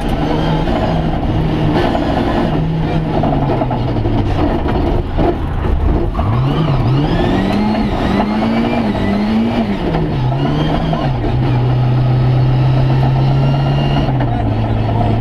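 Rally car engine heard from inside the cockpit at speed: the revs hold, drop away about four to five seconds in, then climb and fall several times as the car accelerates through the gears, and settle at a steady pitch near the end.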